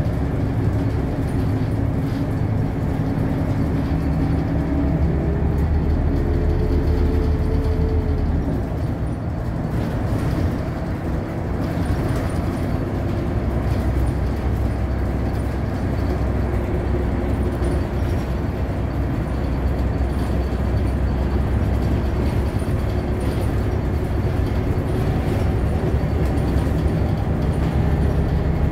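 Interior noise of a moving bus: a steady low engine hum and road rumble, with a faint whine that climbs in pitch about five to eight seconds in.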